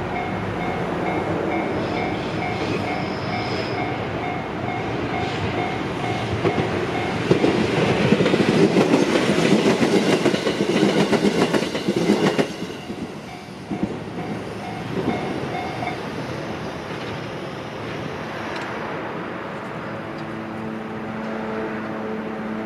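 A level-crossing warning bell rings in a rapid, repeating ding while a train passes, its wheels clattering over the rail joints, loudest about a third of the way in. The bell stops about two-thirds of the way through. Background music begins near the end.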